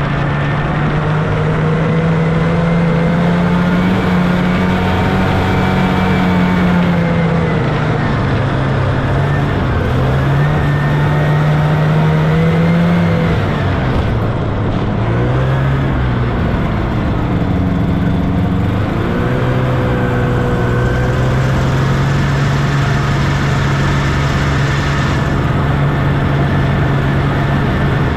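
1979 Scorpion Whip TKX 440 snowmobile's Cuyuna 440 two-stroke engine running under way, loud and steady, its pitch rising and falling with the throttle and dipping a few times around the middle as the sled pushes through snow drifts.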